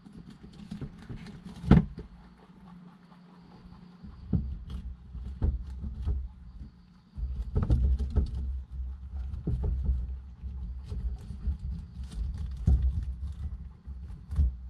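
Young white rabbits moving about on the floor of a glass tank, giving irregular sharp taps, knocks and scuffles. A low rumble runs underneath and gets stronger about halfway through.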